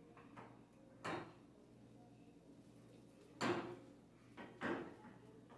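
Pots and pans being handled on a gas stovetop: three short knocks and scrapes, one about a second in and two close together later on, the first of the later two the loudest.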